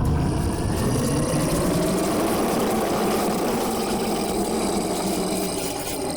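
A person's long, low, rough burp, voiced as a creature sound effect, running on without a break for about six seconds.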